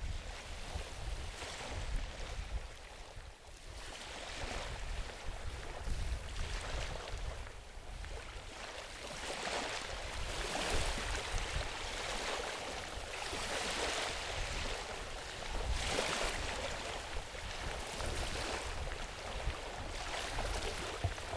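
Wind buffeting the microphone with a gusty low rumble, over a rustling hiss that swells and fades about once every second or so.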